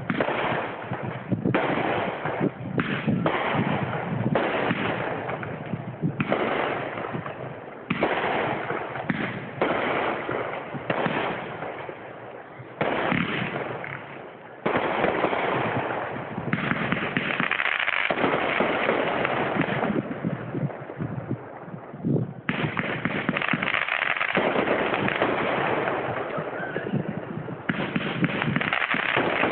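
Aerial fireworks going off: a rapid series of bangs and bursts, coming almost without a break in the second half.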